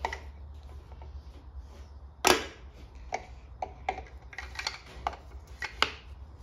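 A piston being worked down through a steel ring compressor into a cylinder bore of a Holden Grey straight-six block. There is one loud sharp tap about two seconds in, then a string of lighter metal clicks and taps.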